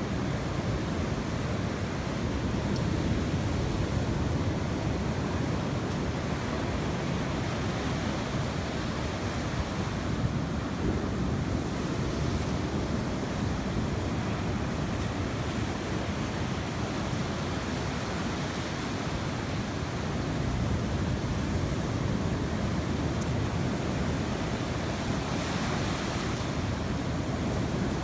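Sea surf washing steadily onto the shore, swelling and easing gently, with wind on the microphone.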